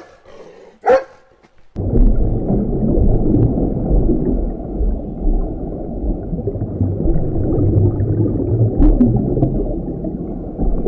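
Two short sharp calls, then a long low rumble that starts about two seconds in and stops abruptly just before the end.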